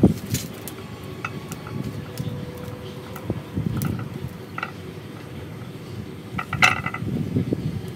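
Glazed ceramic bonsai pot being handled and turned: several short clinks and knocks, the loudest cluster near the end, over a steady low rumble.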